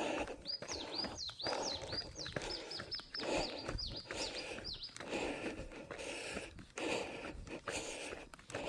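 A small songbird singing a quick run of high, repeated notes, about three or four a second for some four seconds. Footsteps and breathing are underneath.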